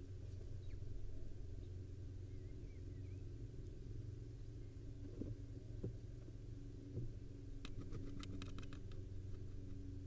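Steady low hum inside a barn owl nest box, with a few soft knocks about halfway through and a quick run of about eight sharp clicks near the end as the birds shift about.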